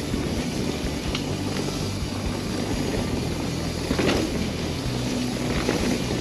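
Mountain bike rolling fast down a dirt trail: steady tyre rumble and rush of wind on the camera's microphone, with a short clatter as the bike hits a bump about four seconds in.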